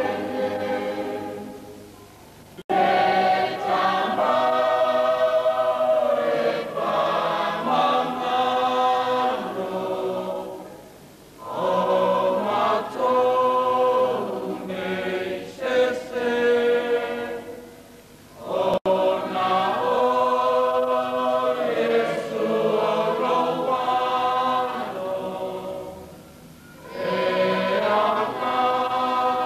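A church choir of many voices singing a hymn in long sustained phrases, with short breaks between them. Twice the singing cuts back in abruptly at full strength.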